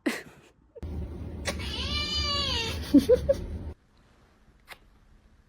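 A domestic cat giving one long, drawn-out meow of about three seconds, its pitch rising and then falling, over a low rumble.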